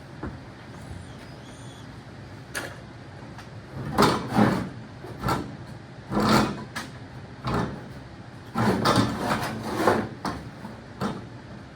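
An irregular series of metal clanks, scrapes and rattles from hand tools and tractor parts being worked and moved, busiest in the middle of the stretch.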